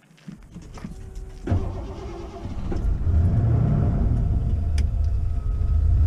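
Camper van's engine running, heard from inside the cab as a steady low rumble. It comes in abruptly about a second and a half in and grows louder a second or so later.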